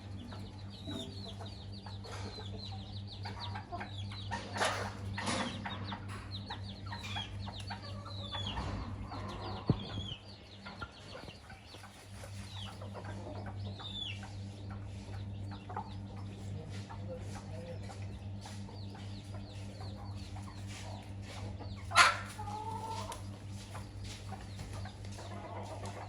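Chickens feeding: a hen clucking and many chicks peeping in short, high, falling chirps, with a couple of louder sharp calls (the loudest near the end). A steady low hum runs underneath.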